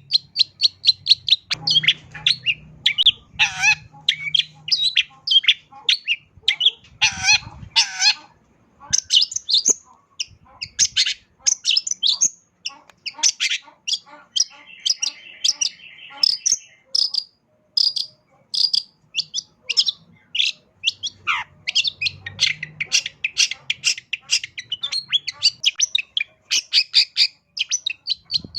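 Long-tailed shrike (cendet) singing a continuous, varied song of rapid sharp chirps and mimicked phrases of other birds. A buzzy trill comes about halfway through, and a single downward-swooping note follows a few seconds later.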